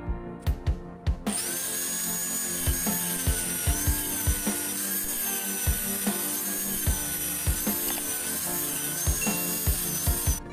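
Angle grinder cutting into a block of sonokeling rosewood, switching on about a second in and cutting off just before the end, its whine wavering up and down as the disc bites the wood. Background music with a steady beat runs underneath.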